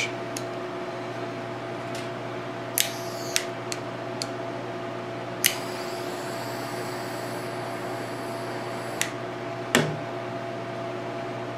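Small handheld butane torch clicking as it is lit, its flame hissing faintly for about three and a half seconds while it melts the end of a paracord, then clicking off; the torch is set down on the metal bench with a knock about ten seconds in. A steady background hum runs throughout.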